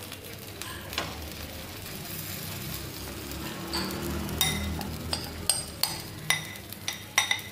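Metal spoon scraping and clinking against a glass bowl in scattered sharp clicks as thick oats omelette batter is pushed out onto a hot griddle, over a faint steady sizzle.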